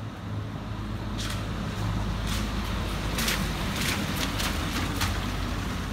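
A car driving slowly along a narrow stone-paved street, its engine a low steady rumble that grows louder at the start. A run of short crackling noises comes between about one and five seconds in.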